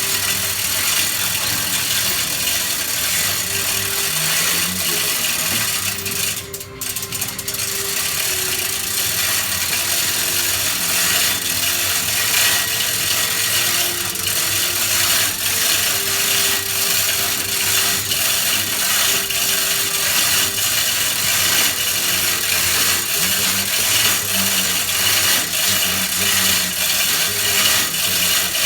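Small backhoe working, its engine and mechanism making a steady mechanical clatter, with a short lull about six seconds in.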